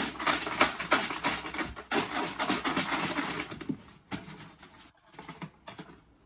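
Numbered draw tokens being shaken and rummaged in a container, a dense rattle for about four seconds that thins to a few scattered clicks.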